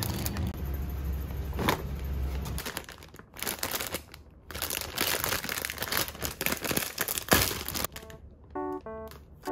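Thin plastic bag of half-baked croissants crinkling as it is handled and pulled open. A light keyboard melody starts near the end.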